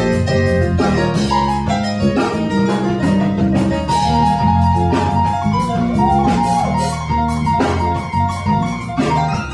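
Live music: an electronic keyboard played over percussion keeping a steady beat.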